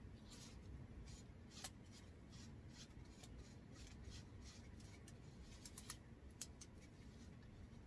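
Near silence, with a few faint, brief scratchy strokes of a paintbrush working along the edge of an air-dry clay spoon rest.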